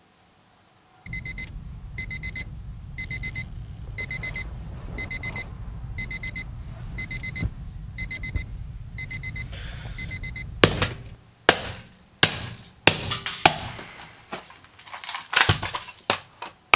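Digital alarm clock going off: a short burst of rapid high beeps about once a second over a low rumble, for about ten seconds. The beeping then stops, and a run of sharp knocks and clattering follows as the clock is handled and lifted.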